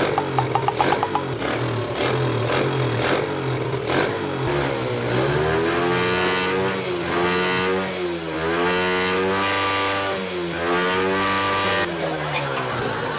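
Motorcycle engine being revved, its pitch rising and falling in several swells through the second half.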